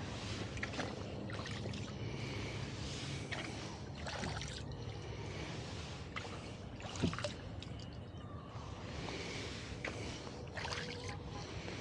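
Oars of a rowboat dipping and pulling through lake water, with water splashing and trickling off the blades every second or two. A single knock comes about seven seconds in.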